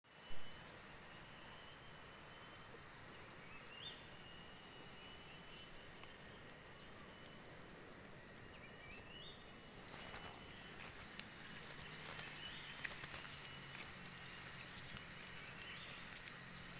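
Insects trilling faintly in a rice paddy: a high, pulsing chirr that starts and stops every few seconds, with a second, lower insect tone. A short knock right at the start and a few light clicks about ten seconds in.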